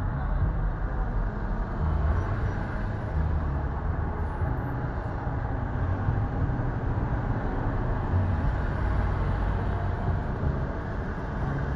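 Steady low rumble of a car's engine and tyres, heard from inside the car as it drives slowly through city traffic.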